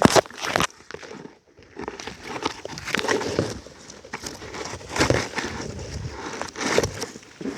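Irregular rustling and crunching, like leaves and grass being pushed through or handled, in uneven bursts with a short lull about a second and a half in.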